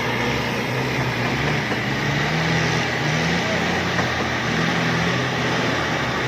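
Off-road vehicle's engine running steadily under load, its pitch wavering slightly, with a loud hiss over it.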